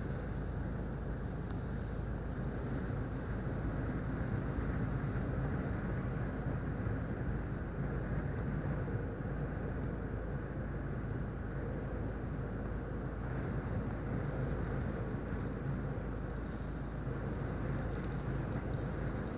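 Steady low rumble inside a car's cabin: the car's engine running while strong wind of a dust storm blows against the car.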